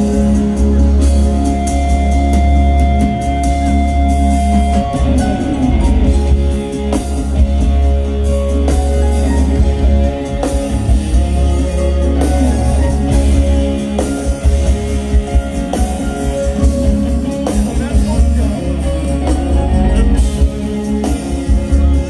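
Live reggae band playing loud through the PA: heavy bass line, electric guitar and drum kit, with a long held note in the first few seconds.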